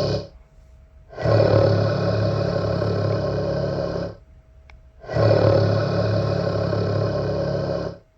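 A pregnant woman snoring loudly: long snores of about three seconds each, with pauses of about a second between them, two full snores and a third beginning near the end.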